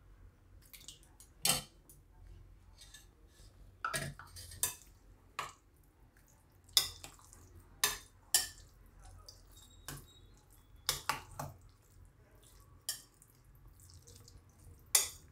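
A spoon clinking, knocking and scraping against a glass bowl while stirring curd into cooked rice, about a dozen separate irregular clinks, with soft mushy stirring in between.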